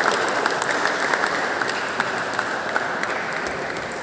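Audience applauding, a dense patter of many hands clapping that gradually fades toward the end.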